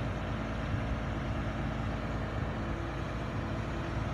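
Caterpillar hydraulic excavator's diesel engine running steadily.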